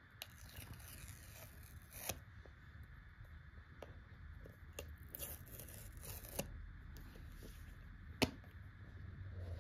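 Paper seal tabs being torn from an iPhone 15 Pro Max's cardboard box, then the box handled as its lid is worked off. Faint tearing and rustling with a few sharp ticks, the sharpest about two, six and eight seconds in.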